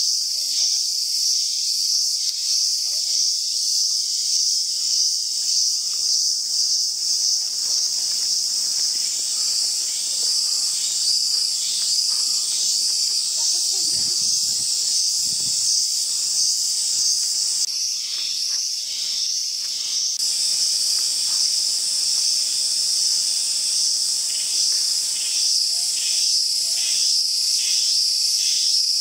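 Dense daytime chorus of cicadas: a loud, steady high-pitched buzzing with a pulsing beat, shifting in tone a little over halfway through.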